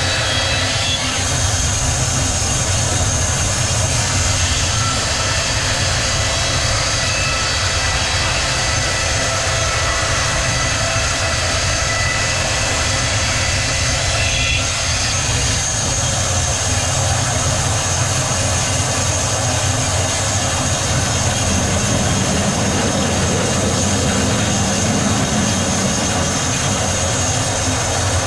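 Multi-blade sawmill running: a steady, loud machine noise with a thin high whine over it.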